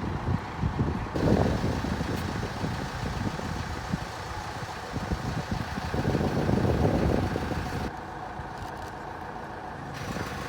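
Wind buffeting the microphone in irregular gusts, strongest about a second in and again past the middle, over a steady vehicle engine idling.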